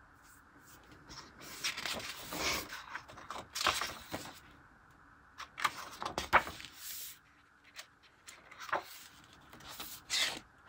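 Paper planner pages being turned and pressed flat by hand: several soft swishes and rustles of paper.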